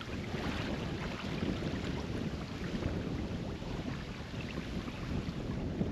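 Wind buffeting the microphone in a strong crosswind: a steady low rumble that swells and dips with the gusts.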